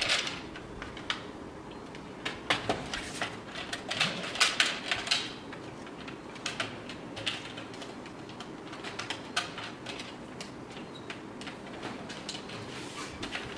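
Plastic ships being pressed into the peg holes of a Battleship game's ocean grid: irregular sharp clicks and taps throughout, bunched most thickly a few seconds in.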